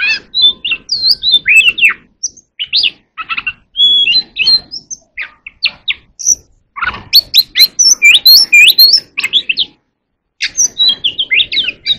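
Oriental magpie-robin singing loudly: a varied run of clear whistles, rising and falling slurs and quick chattering notes, breaking off briefly twice.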